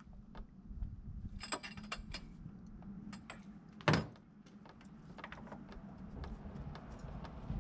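Metal hand tools clinking and rattling in short bursts, with one loud knock about four seconds in as a tool is set down on the workbench.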